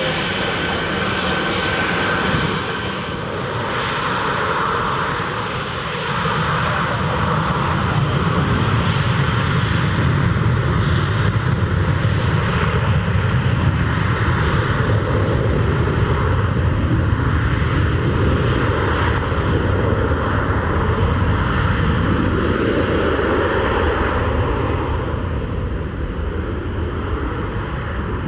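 Airliner engines running loudly and steadily, with a high turbine whine near the start that slides down in pitch. The sharper highs fade over the last several seconds.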